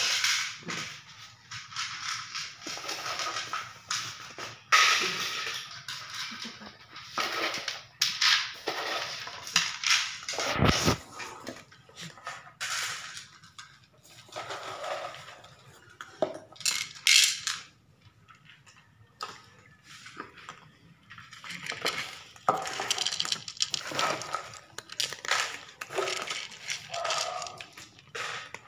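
Several cats eating dry snacks from bowls and plates on a tiled floor: irregular crunching and chewing, with bowls and plates clattering and scraping on the tiles.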